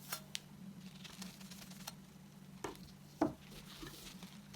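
A vinegar-dampened tissue rubbing over stainless steel cutlery to wipe off dishwasher stains, faint and scratchy, with two soft knocks of the cutlery about two and a half and three seconds in.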